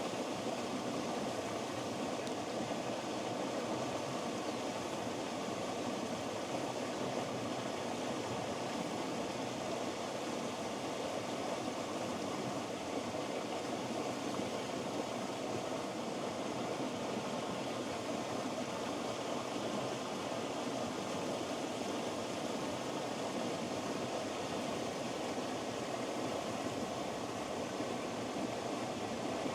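Small waterfall pouring steadily into a deep pool: a constant, unbroken rush of water.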